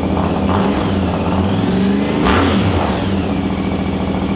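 Yamaha Ténéré 700's 689 cc parallel-twin engine running through an aftermarket high-mount exhaust with the baffle in, blipped up from idle in short revs, the biggest about two seconds in. It sounds loud.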